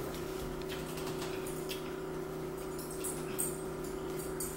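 Faint small clicks and handling noises of people eating biscuits at a table, over a steady low hum.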